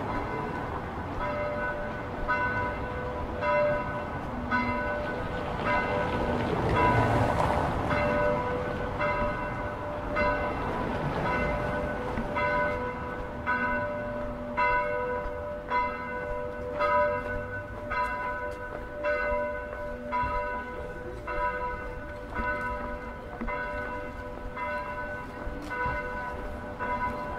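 Church bells ringing a steady peal: several bells of different pitch struck in turn, about two strokes a second, each tone ringing on. Low city traffic noise runs underneath, with a louder noisy swell about a third of the way in.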